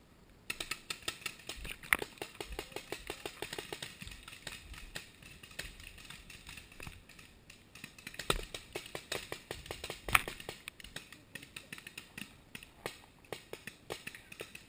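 Paintball markers firing: a rapid string of sharp pops, several a second, starting about half a second in and going on throughout, with a few louder close shots.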